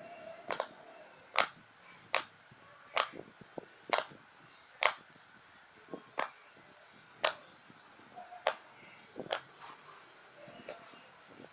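Silicone pop-it fidget toy bubbles being pressed in with fingertips one at a time, each giving a short sharp pop, about one a second at an uneven pace, some louder than others.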